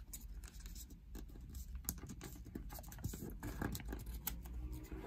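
Origami colour paper crinkling and rustling under the fingers as folds are pressed and creased, a run of small, irregular crackles and taps.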